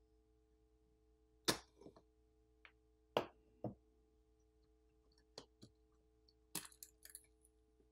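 Light clicks and taps of small tools and smartphone parts being handled during disassembly. The loudest comes about a second and a half in, two more near the middle, and a small cluster near the end, over a faint steady hum.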